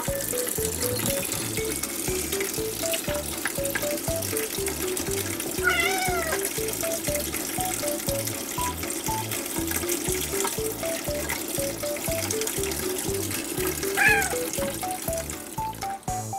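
A domestic cat meowing twice, a short rise-and-fall call about six seconds in and a louder one near the end, over light background music with a steady beat and a steady hiss.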